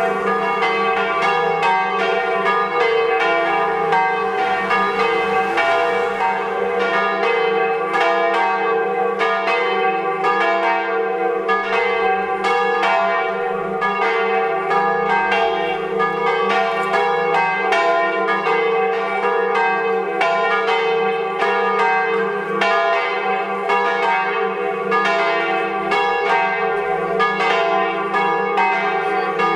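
Church bells from a five-bell set tuned to a diatonic scale on E-flat, swung and ringing together in a continuous peal, their strikes overlapping at roughly two a second over a sustained hum.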